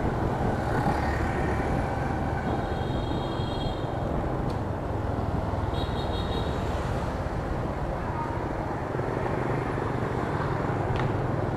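Motorbike ride through city traffic, picked up on an action camera's microphone: steady engine, wind and road noise throughout. Two brief high-pitched tones sound a few seconds apart.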